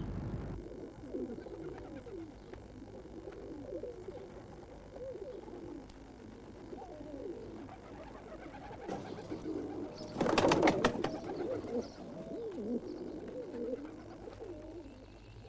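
Homing pigeons cooing in a loft, with a run of low wavering coos throughout. About ten seconds in comes a louder, brief burst of wing flapping.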